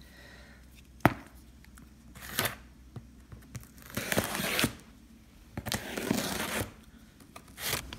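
Scissors slicing through the packing tape on a cardboard shipping box: several short stretches of tape being cut and torn, with a sharp click about a second in.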